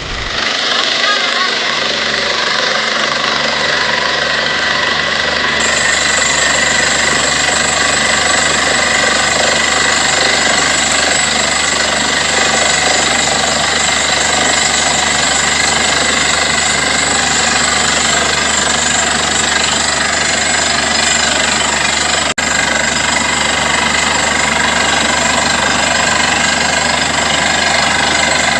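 Borewell drilling rig running steadily, its air hammer drilling continuously over the engine and compressor, with a momentary break about 22 seconds in.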